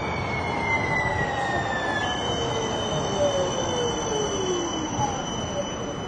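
San Diego Trolley light-rail train running past, its wheels squealing on the rails over a steady rumble, with several high squealing tones that slide slowly down in pitch.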